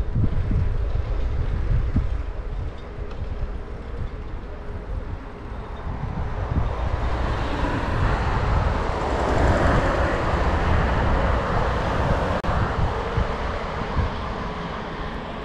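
Wind buffeting the microphone of a GoPro on a moving bicycle, a heavy fluttering rumble, with rolling tyre noise on asphalt. A broader rushing sound swells and fades in the middle.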